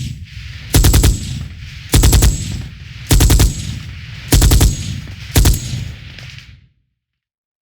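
Machine gun firing in short bursts of a few rapid shots each, about one burst a second, five in all, each burst trailing away after it stops.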